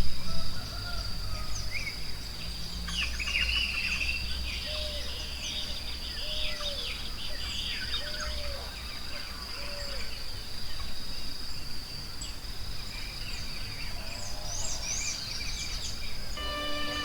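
Forest ambience: many birds chirping and calling over a steady high insect drone, with a lower call repeated every second or so in the middle. Soft instrumental music comes in near the end.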